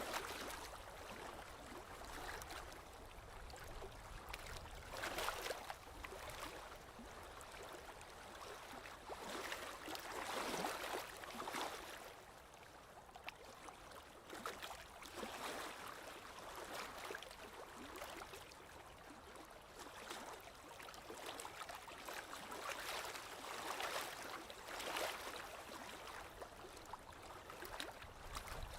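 Small lake waves lapping on the shore, in gentle splashing swells that come every few seconds.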